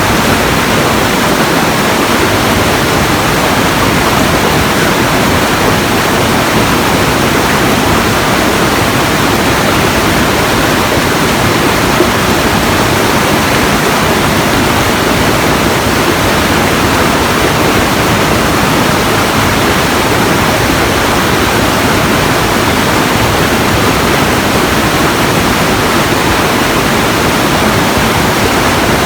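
Steady, loud rushing noise, even across low and high pitches, with no rhythm and no separate events.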